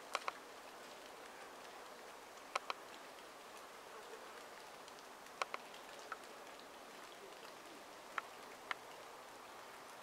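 Faint steady outdoor hiss, broken every few seconds by sharp short clicks, most of them in close pairs.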